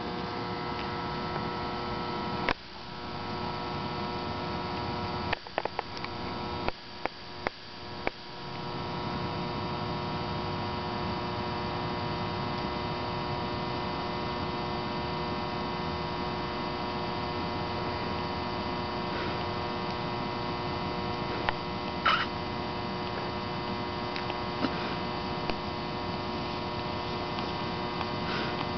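Steady hum made of several fixed tones, with a handful of sharp clicks between about two and eight seconds in.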